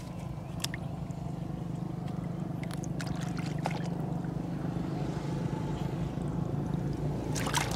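A small engine drones steadily throughout, with a few short splashes and squelches of hands digging in wet mud, more of them close together near the end.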